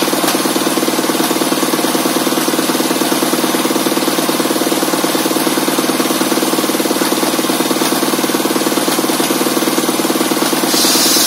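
Engine-driven bench circular saw running steadily with no wood on the blade, the engine's steady hum in the foreground. About ten and a half seconds in, the blade starts cutting a meranti plank again and a loud hiss of sawing joins in.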